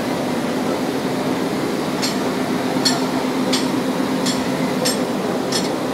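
Light, ringing metallic taps about every 0.7 seconds from about two seconds in, over a steady low mechanical hum with a held note, as metal coupling gear between two railway coaches is worked.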